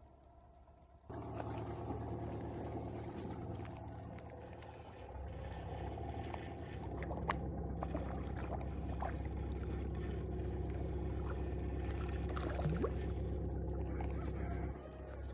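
Rushing river water with a low rumble, starting suddenly about a second in, with scattered sharp clicks over it.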